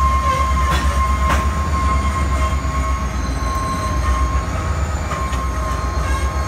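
Diesel locomotive rolling slowly past, its engine giving a steady low rumble, with a steady high-pitched wheel squeal over it and a couple of sharp metallic clicks about a second in.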